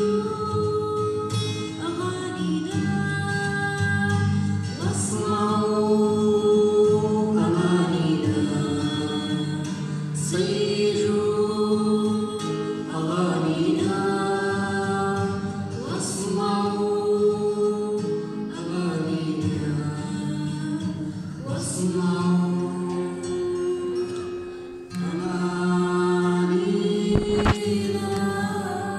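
A girl's voice singing long held phrases over a strummed acoustic guitar, with a brief thump near the end.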